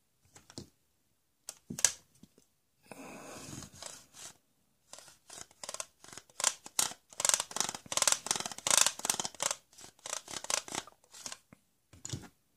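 A toy hand saw scraping against a toy plank. A few plastic clacks come first, then one steady scrape. From about five seconds in comes a run of quick back-and-forth sawing strokes that lasts several seconds.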